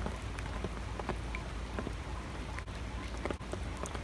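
Rain falling on puddles and wet ground: a steady hiss with scattered drops ticking throughout.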